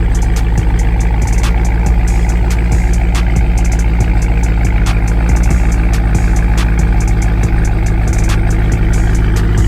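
Dodge Scat Pack's 392 HEMI 6.4-litre V8 idling steadily through its stock exhaust, a deep, even burble.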